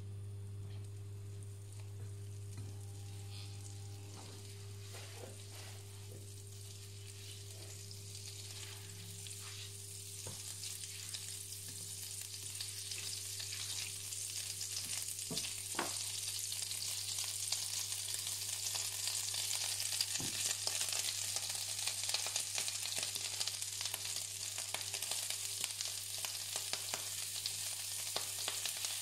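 Butter melting and sizzling in a nonstick frying pan, pushed around with a silicone spatula; the sizzle builds up and grows louder through the first half as the pan heats. A steady low hum runs underneath.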